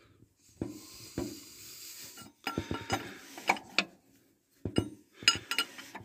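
Open-end wrench clinking against steel as the already loosened nut on the fan-drive shaft of a K-704TU tractor is turned off: irregular metallic clinks and taps, bunched together about halfway through and again near the end.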